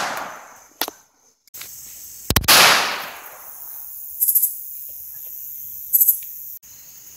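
Semi-automatic pistol shots, each a sharp crack with a long echoing decay: one about two seconds in, the fading tail of a shot at the start, and another shot at the very end.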